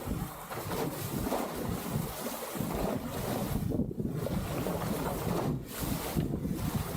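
Wind buffeting the microphone over the rush and splash of water past the hulls of a Dart 18 catamaran under sail. The hiss of the water drops away briefly a few times.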